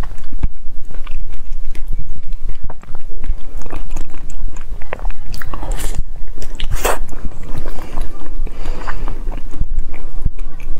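Close-miked biting and chewing of a white ice cream bar studded with tapioca pearls: crisp bites and chewing throughout, with a few louder crunching bites a little past the middle.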